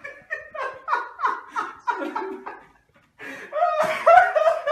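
A man laughing hard: a run of short 'ha' bursts, about four or five a second, that trails off, then a brief pause and more laughter near the end.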